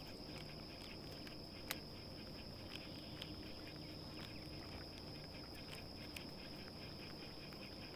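Quiet outdoor ambience: a faint steady high-pitched tone with scattered soft ticks, and one sharper click about two seconds in.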